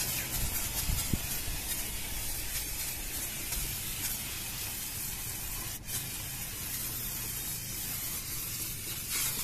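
Aerosol can of Würth engine cleaner spraying in a long steady hiss, with a short break a little after halfway.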